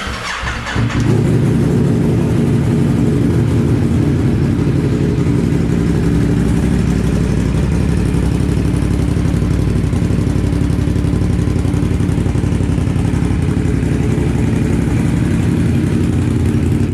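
Ducati SuperSport V-twin with an aftermarket SC exhaust cranking on the starter and catching about a second in, then idling steadily, loud and full-toned.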